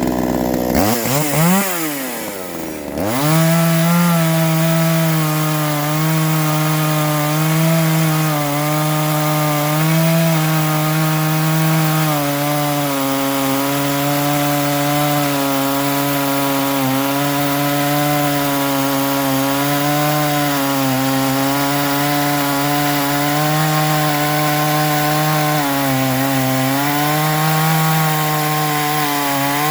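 Ported neo-tec NH841 two-stroke chainsaw cutting softwood with a freshly sharpened chain. Its revs swing up and down in the first few seconds, then hold nearly steady at full throttle through a long cut, dipping slightly now and then as the chain takes load.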